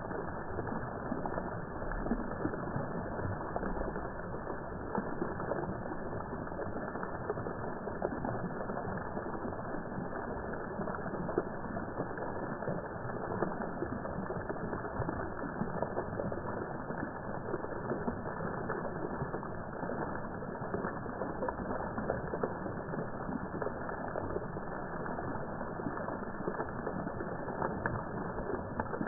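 Fountain jets spraying and water splashing down into the basin, slowed down with the slow-motion picture: a steady, deep, muffled rush of falling water.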